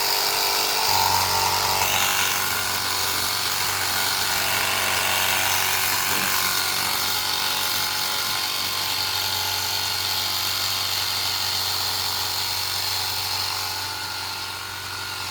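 Cordless battery-powered 850 PSI pressure washer running and spraying: a steady motor hum, steady from about a second in, under the hiss of the water jet.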